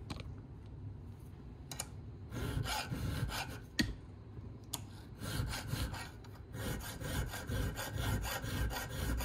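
Flat file scraping back and forth across a small metal flywheel key clamped in vise grips, taking metal off the key to advance the chainsaw's ignition timing. A few light clicks come first; the filing strokes start about two seconds in and come faster near the end.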